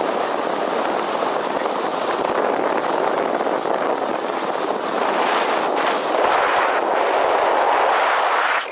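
Strong wind blowing over the microphone as a steady rushing noise, a little louder from about six seconds in.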